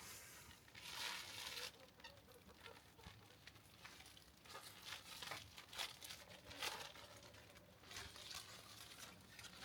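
Plastic shrink-wrap bags crinkling faintly in irregular bursts as they are opened and pulled over whole chicken carcasses.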